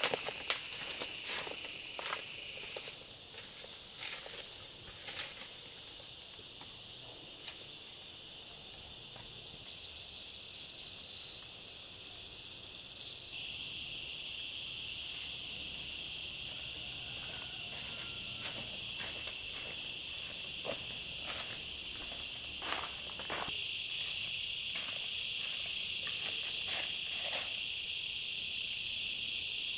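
Insects chirring steadily in high, shrill bands, with scattered sharp clicks and snaps, most of them in the first half.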